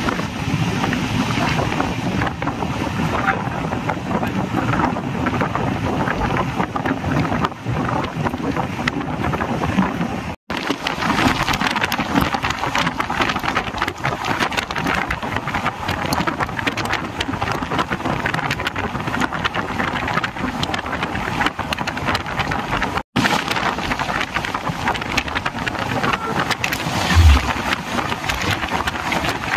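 Express passenger train running at speed: a steady rush of wheels on rail and wind, with a short low thump near the end.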